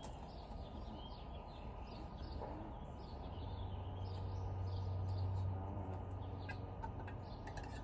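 Small birds chirping in the background over a steady low rumble that swells for a couple of seconds around the middle.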